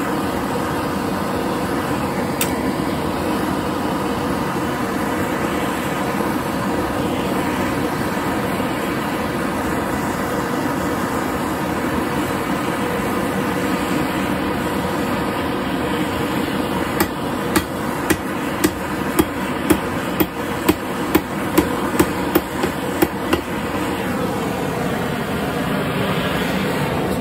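Hand-held propane torch burning steadily with a rushing flame, heating an anvil-mounting nail red hot. Past the middle comes a quick run of about fourteen hammer strikes, roughly two a second, bending the hot nail over the anvil foot.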